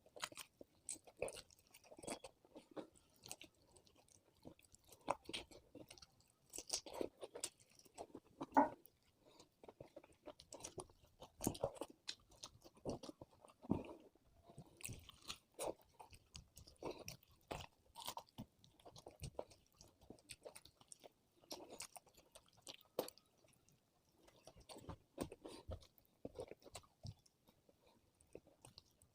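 Close-miked eating: a person chewing and biting food, with many irregular wet clicks and occasional crunches.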